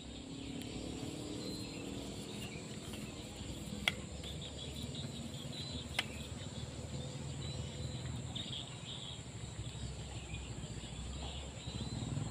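Insects drone steadily at a high pitch, with scattered bird chirps and two sharp clicks about four and six seconds in.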